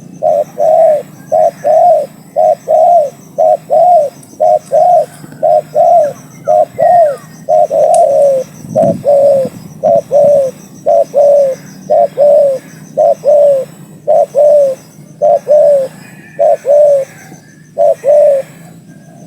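Spotted dove (tekukur) cooing close by: a long, even series of short arched coos, mostly in pairs, repeated throughout.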